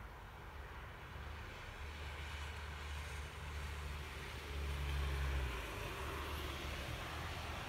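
Low background rumble under an even outdoor hiss, swelling about two-thirds of the way through and then easing back.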